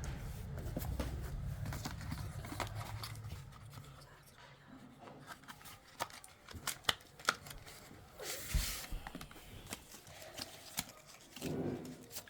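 Handling of a phone and its packaging: a low rumble fades out over the first few seconds, then come scattered small clicks and taps and a brief rustle about eight seconds in.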